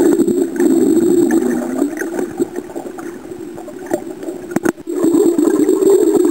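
Muffled underwater sound picked up by a camera held under the water: a steady low rush of moving water with scattered clicks and gurgles, and a couple of sharper clicks a little past halfway.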